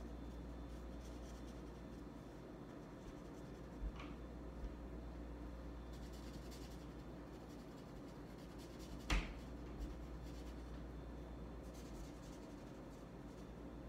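Marker tip scratching and rubbing on paper as wing areas are coloured in, in short faint stretches of strokes. A few light knocks come through, the loudest about nine seconds in, over a steady low hum.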